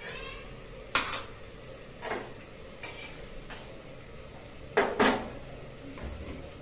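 Steel cookware clanking on the stove: a ladle and lid knocking against a steel kadai in a handful of sharp metallic clinks, the loudest about a second in and two close together about five seconds in.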